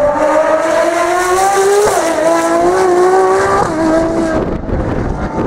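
Ferrari V12 track car accelerating hard, its engine note climbing steadily. It shifts up twice, about two seconds in and again about three and a half seconds in, with a sharp drop in pitch each time, and the note fades as the car pulls away.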